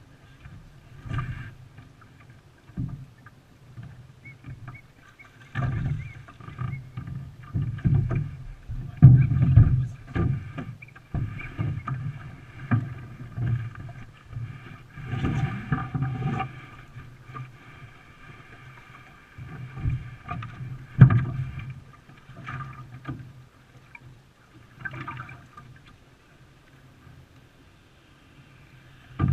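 Canoe being paddled on the water, with irregular splashes and thumps of the paddle and boat.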